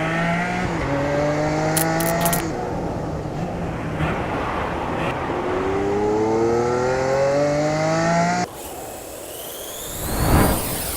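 Sports car engine accelerating with its pitch rising: a short climb ending about two seconds in, then a long climb that cuts off suddenly about eight and a half seconds in. A car then whooshes past near the end.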